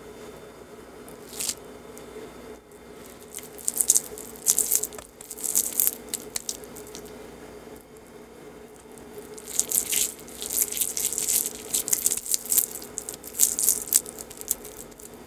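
Crackly rustling in bursts as hands handle and roll balls of sticky five-nut mooncake filling (chopped nuts, seeds and candied winter melon), densest in the second half. A faint steady hum runs underneath.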